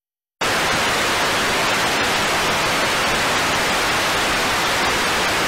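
Analog TV static: the steady hiss of an untuned television set, cutting in abruptly about half a second in.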